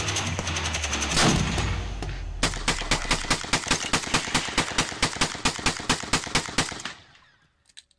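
Rapid rifle fire: a loud shot about a second in, then a long string of quick, evenly spaced shots at about eight a second that fades out near the end.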